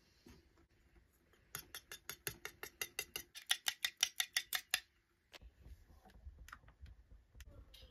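Tiny wire whisk beating egg in a small steel bowl: rapid, even clicking of the wires against the metal, about six strokes a second, starting a second and a half in and stopping a little before the five-second mark. After it, a low rumble with a few scattered clicks.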